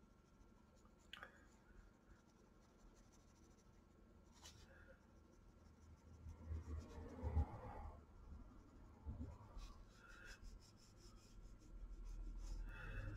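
Faint scratching of a coloured pencil being worked across sketchbook paper, with a few light ticks and a louder stretch of strokes about halfway through.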